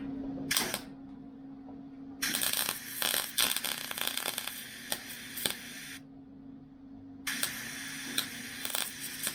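Wire-feed (MIG) welder running thin .023 wire on the steel body of a 1969 VW Beetle, laying welds to fill holes: a brief crackle, then two runs of crackling and popping, about four seconds and then two seconds long. A steady low hum sits underneath.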